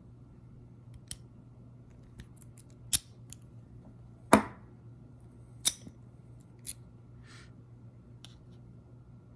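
Lock-picking tools clicking and tapping in a Master Lock No. 1 laminated steel padlock: several sharp metallic clicks at irregular intervals, the loudest about four seconds in.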